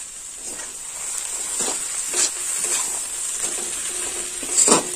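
Metal spatula scraping and stirring grass pea greens and dal in a metal kadai, in a series of short strokes, the loudest near the end. Under it the pan sizzles steadily as the greens are dry-fried with the spice paste.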